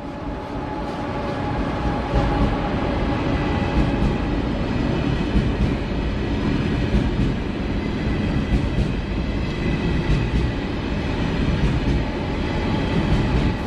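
A train running on the tracks beside a station platform: a continuous rumble with wheel clicks and steady high tones over it, growing louder over the first two seconds and then holding.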